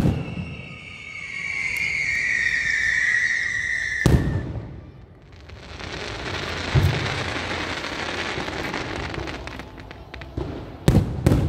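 Aerial fireworks display. A high whistle, slowly falling in pitch, runs for about four seconds and ends in a loud bang. Several seconds of dense crackling follow, and more sharp booms come near the end.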